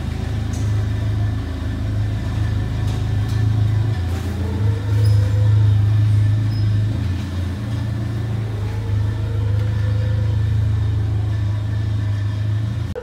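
Forklift engine running as the truck drives slowly with a heavy machine on its forks, a steady low hum whose pitch rises and falls twice as the engine speeds up and eases off.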